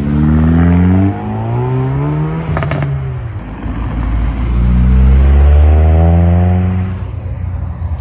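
Car engine revving and accelerating hard, its pitch climbing twice with a brief sharp crack about two and a half seconds in. It is loudest around five to six seconds, then fades.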